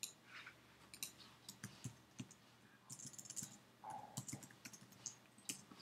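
Faint, irregular clicking of keys on a computer keyboard being typed on.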